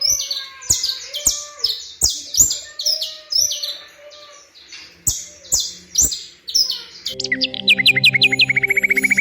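A bird chirping over and over in short, sharp, high calls, about two a second. About seven seconds in, music with held low notes comes in over it.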